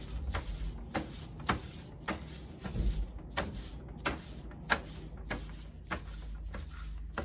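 Light, irregular taps and knocks, about two a second, as a small silicone lid mold of wet concrete is handled and tapped on a tabletop, over a low steady hum.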